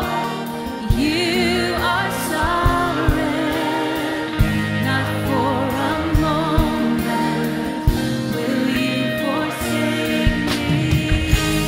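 Live worship music: a sung melody with wide vibrato over a band with sustained bass and keyboard notes and occasional drum hits.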